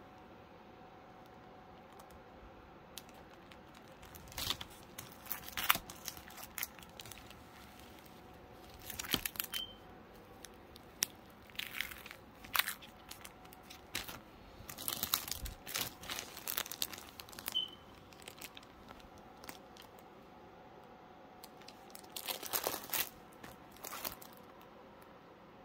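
Thin clear plastic packaging crinkling and rustling in several short, irregular bouts as the sewing rulers inside their plastic sleeves are handled, with quiet pauses between.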